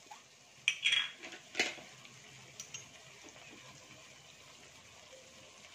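A few light clicks and clinks of a steel spoon and glass vinegar bottle as vinegar is measured into the pan, in the first three seconds. Under them, faint sizzling of onion-tomato masala in a steel kadai.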